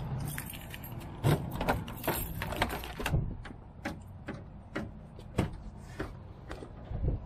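A bunch of keys jangling and clicking at the door lock of a squarebody Chevrolet C10 pickup, a dense rattle for the first few seconds. Then separate clicks and light knocks about every half second as things behind the seat are moved about, with a dull knock near the end.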